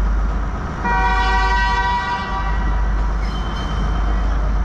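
Sri Lankan passenger train's diesel locomotive sounding its horn once, a steady blast of about a second and a half starting about a second in, over a steady low rumble.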